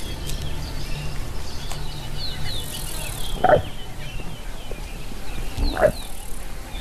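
Wild bush sounds: many small birds chirping and insects buzzing, with two short, louder animal calls about two seconds apart.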